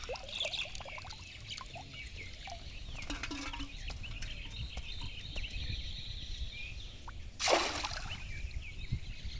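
Birds chirping throughout over a low outdoor rumble. Near the end comes one loud, short splash as the bamboo fish trap is laid back down on the water.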